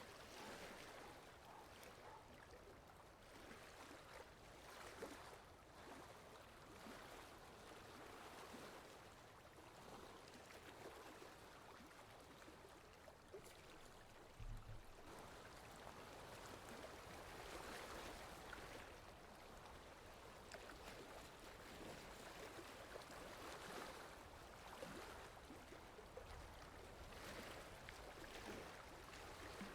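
Faint water lapping: soft swells of splashing noise that come and go every second or two, with one brief low thump about halfway through.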